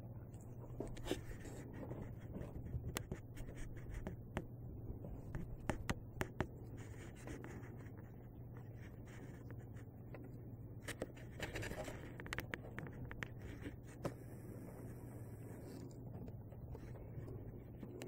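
Kittens' claws scratching and scraping on a quilted bedspread and pillows as they scramble and play: faint, irregular scratches and soft ticks, busier in the first half and again past the middle, over a steady low hum.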